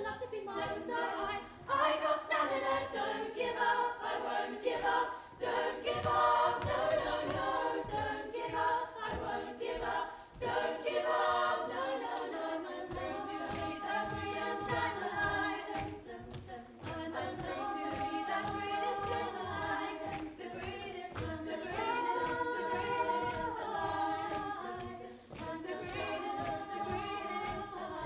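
All-female youth a cappella choir singing a pop arrangement in close harmony over a steady beat.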